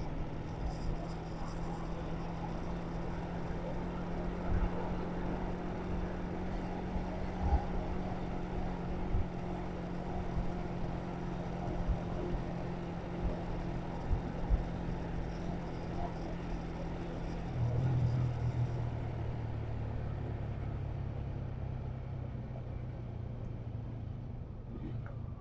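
A motor vehicle's engine running steadily with a low hum. About two-thirds of the way through, the hum drops to a lower pitch and grows slightly louder.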